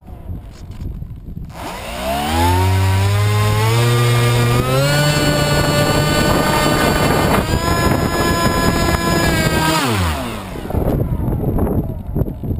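Electric motor and propeller of an RC plane, heard close from the plane's onboard camera: a whine that climbs in pitch in steps over a few seconds, holds steady, then winds quickly down about ten seconds in.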